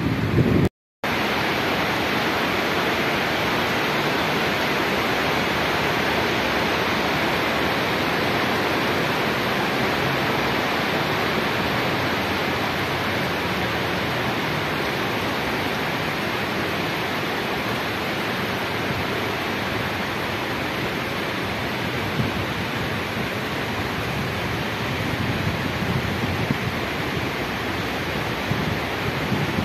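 Steady rainfall, an even, unbroken hiss.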